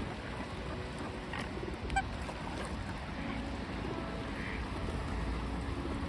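Mallards and other waterbirds on open water: a few faint, scattered duck calls over a steady low rumble, with one small click about two seconds in.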